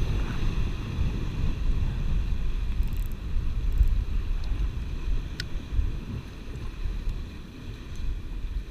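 Wind buffeting the microphone over the wash of surf breaking against shoreline rocks, a steady low rumble. A few faint clicks come through about three and five seconds in.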